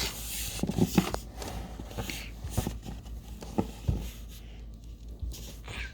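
Soft slime being poked, squeezed and stretched by hand: scattered small sticky clicks and crackling squishes.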